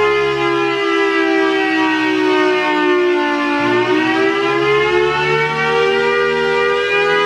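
Federal Signal Thunderbolt 1000AT civil defense siren sounding loudly through its large horn in a wail. The pitch falls slowly for about three and a half seconds, then rises again and holds steady.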